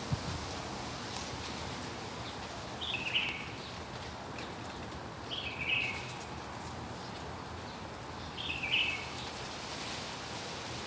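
A bird repeating a short, falling call about every three seconds, three times, over a steady hiss of wind.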